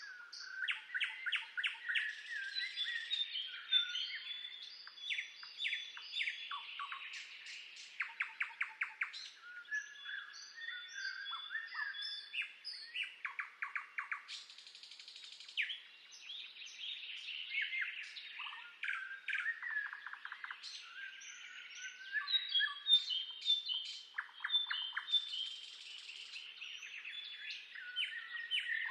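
Several birds singing and chirping at once, a continuous dawn-chorus-like mix of whistled notes and rapid trills overlapping one another.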